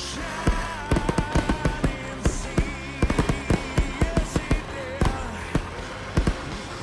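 Music with a wavering, warbling melody, over a dense run of sharp cracks and bangs.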